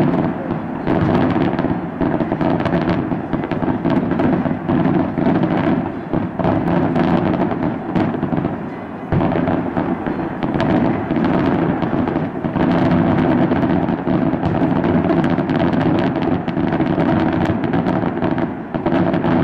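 Daytime fireworks display: a continuous barrage of bursting shells, with rapid, overlapping bangs and crackles. It eases off briefly about nine seconds in, then picks up again.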